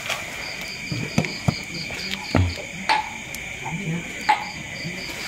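Night chorus of crickets and frogs: a steady high insect trill with a faster pulsing chirp above it. A few short, louder sounds break in through the middle.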